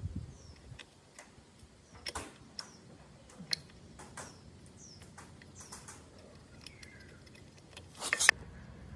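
Irregular clicks and taps with a few short chirps, and a louder cluster of clicks about eight seconds in.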